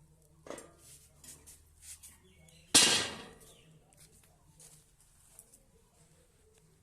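A loud metal clang about three seconds in that rings off briefly, as the iron grill is set down, with a few lighter knocks before it.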